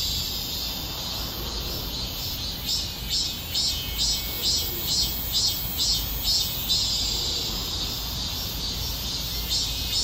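Cicada singing, a high buzzing call that holds steady, breaks into a pulsing rhythm about two or three times a second, swells back into a steady buzz, and then pulses again near the end.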